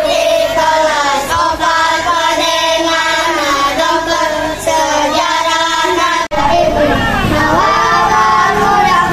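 A group of children singing together into microphones over a sound system, with a brief break in the sound about six seconds in.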